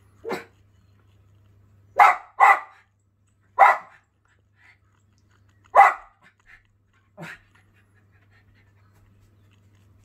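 Schipperke barking at a bird on the television screen: six single sharp barks over about seven seconds. Two come close together about two seconds in, and the last one is softer.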